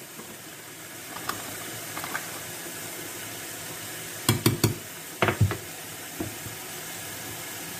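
Steady hiss of milk heating in a pan on the hob, with a few quick knocks and taps about four and five seconds in as the corn flour box is handled.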